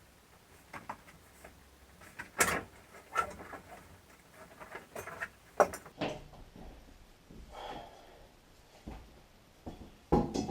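Scattered, irregular knocks and clicks of objects being handled, with the sharpest knocks about two and a half and five and a half seconds in.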